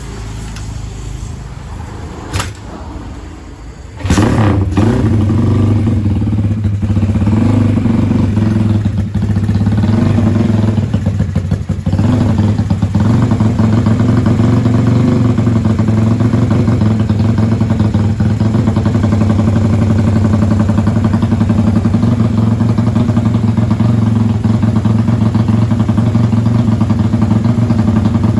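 Honda Tiger motorcycle's single-cylinder engine starting suddenly about four seconds in, after a sharp click. It runs loud and a little unevenly at first, then settles into a steady idle.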